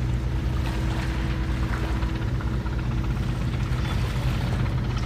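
An engine running steadily: a low drone with a steady higher tone above it and light clicking and rushing noise over it.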